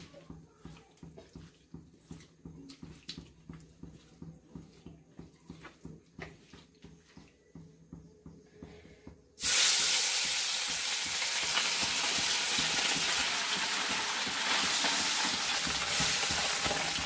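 Hands squelching turmeric-coated magur catfish pieces in a steel bowl, a soft quick rhythm. About nine seconds in, loud, steady sizzling starts abruptly as the fish pieces fry in hot oil in a kadhai.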